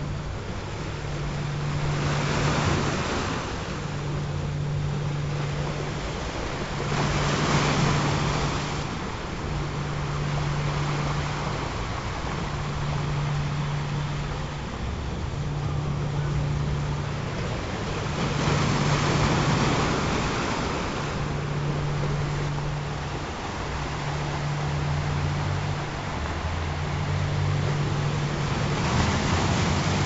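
Ocean surf, waves swelling and washing in every few seconds, under a low humming tone that pulses on and off about every three seconds; a second, lower tone joins near the end.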